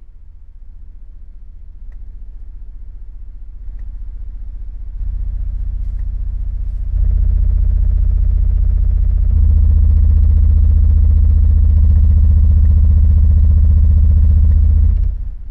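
Car audio subwoofers playing very deep bass. The volume is turned up in steps until the bass is very loud, the tone shifts once about two-thirds through, and the bass cuts off suddenly near the end.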